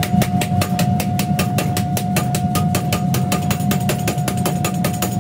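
Metalworking machinery running with a steady hum and a constant whine, over a fast, even run of knocks at about six a second.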